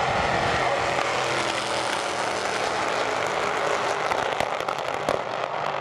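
Drag-racing car engine running hard on the strip, with a few sharp cracks about four to five seconds in.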